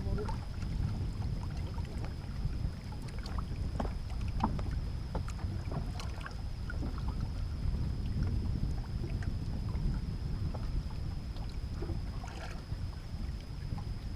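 Wind buffeting the microphone on an open boat, a steady low rumble, with scattered light clicks and knocks from gear being handled.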